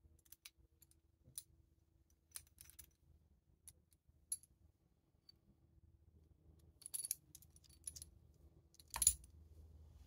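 Small metal parts of a quick-release seat post clamp, the lever and its threaded bolt, handled and worked in the fingers: faint, scattered light clicks and ticks as the lever turns on its pivot, with a louder clack about nine seconds in.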